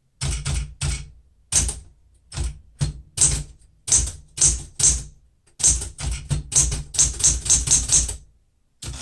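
1970 Smith-Corona Super Sterling manual typewriter being typed on at speed: quick runs of key and typebar strikes with short pauses between them, and a longer pause near the end.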